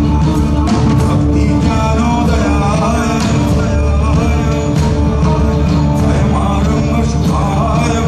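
A rock band playing live, loud and steady, with guitar, hand drums and a male voice singing.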